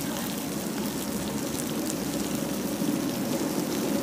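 Fish and vegetables in a banana leaf sizzling on a hot flat-top griddle as sauce is ladled over them: a steady crackling hiss over a steady low hum.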